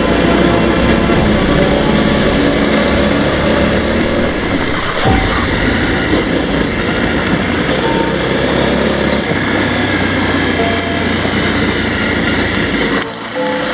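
Honda CRF250L's single-cylinder four-stroke engine running steadily under way on a gravel track, mixed with rush of wind and rattle from the rough surface. The sound dips briefly near the end.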